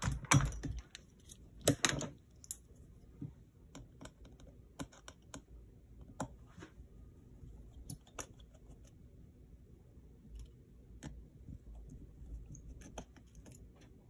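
Scattered light clicks and taps of small hand tools being set down, picked up and touching the metal chassis of an opened MacBook Air, with a couple of sharper clicks in the first two seconds and faint sparse ticks after.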